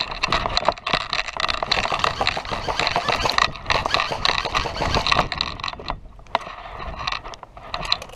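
Airsoft electric rifles firing rapid full-auto bursts, a buzzing gearbox whine with fast clicks. After about five seconds it thins to scattered short bursts.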